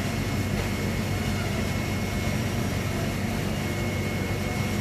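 Steady low mechanical drone with a thin, constant high whine above it; nothing starts or stops.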